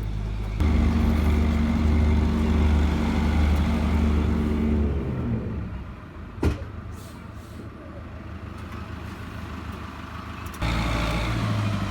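An engine running steadily, then slowing and dying away about five seconds in; a single sharp click follows a second or so later.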